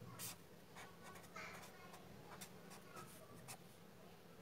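Faint scratching of a felt-tip pen writing on paper, in short irregular strokes.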